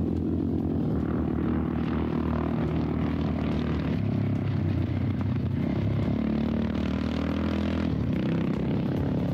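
Rally motorcycle engines running hard as two off-road bikes ride past on a dirt desert track, with a steady buzz that shifts a little in pitch as they go by.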